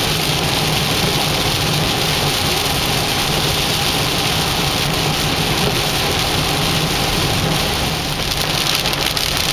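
Heavy rain falling steadily, a dense even hiss with a low steady hum underneath.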